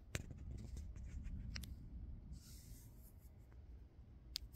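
Faint scattered clicks and a brief scratchy rustle over a low steady background rumble.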